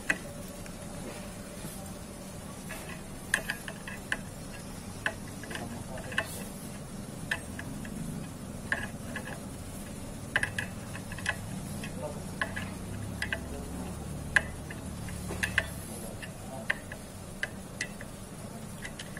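Scattered sharp metallic clicks, some in quick pairs or threes, as a socket wrench on an extension turns the clutch spring bolts on a Honda EX5 Dream's clutch pressure plate.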